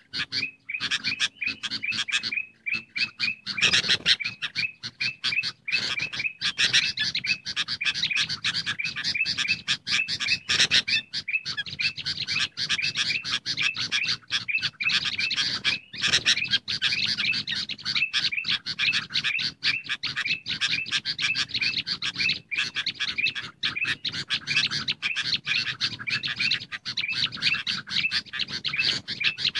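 Bird-lure recording of bulbuls calling nonstop: fast, dense chattering, many chirps a second, with a run of repeated notes. It is a mix of noisy sooty-headed bulbul and ruby-throated bulbul calls, made to draw wild birds in.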